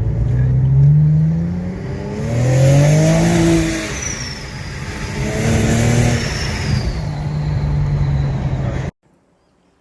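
Car engine accelerating hard, its pitch rising through three gears with road and wind noise, then cutting off abruptly near the end.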